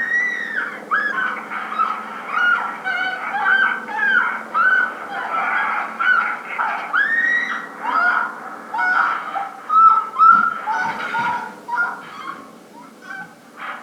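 Geese honking: many short, overlapping calls at varied pitches, thinning out near the end.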